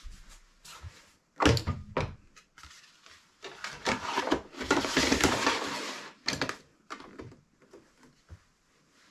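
A folded cardboard music book is being loaded into the wooden key frame of a hand-cranked street organ. There are two sharp knocks about a second and a half in, then a few seconds of cardboard scraping and sliding over wood, then a few lighter clicks as the book is seated. The organ is not yet playing.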